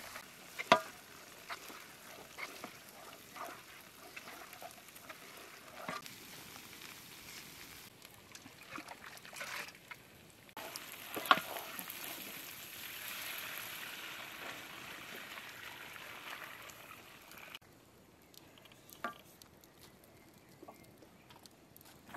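Large pot of liquid steaming over a wood fire, hissing and bubbling, while a wooden spoon scrapes a bowl and knocks against the pot with a few sharp clacks. The background hiss changes abruptly a few times and is quieter near the end.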